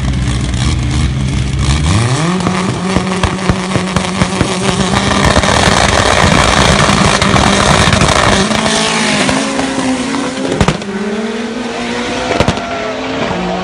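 Turbocharged Chevrolet Chevette drag car's engine idling, then revved up about two seconds in and held at a steady high note with rapid crackling. It then launches and accelerates, its pitch rising in repeated sweeps through the gears, with two sharp cracks near the end.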